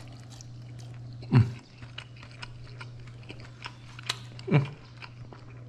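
Close-up chewing, with light clicks of a fork and spoon on a plate, over a steady low hum. Two short falling cries cut in, about a second and a half in and again near the end.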